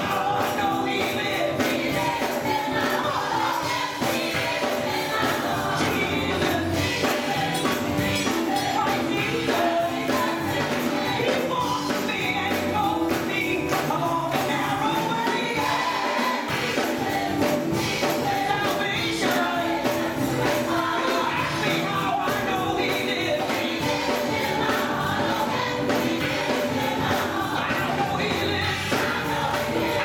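Gospel choir singing, with a lead vocalist on a handheld microphone, over steady hand clapping that keeps the beat.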